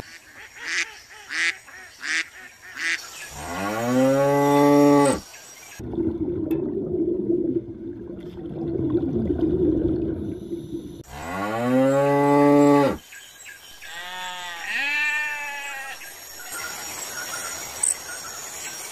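Cow mooing: two long moos, one about three seconds in and one about eleven seconds in, then two shorter calls around fourteen to fifteen seconds. A few short sharp calls come before the first moo.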